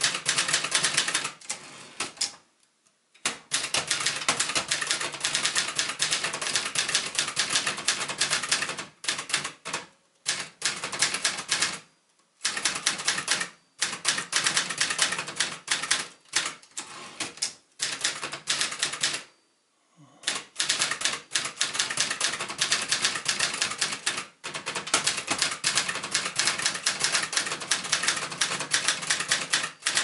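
Brother Prestige 688 Tabulator portable manual typewriter being typed on: rapid runs of sharp keystroke clacks, several a second, broken by a few short pauses.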